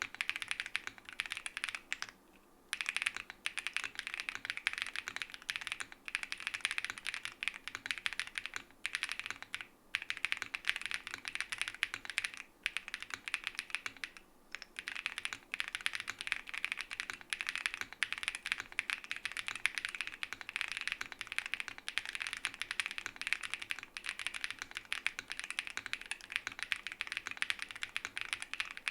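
Fast continuous typing on a gasket-mounted Space80 custom mechanical keyboard with a PC plate, foam-dampened case and Keygeek Peachy switches under SW Wild keycaps, a dense run of keystrokes broken by a few short pauses.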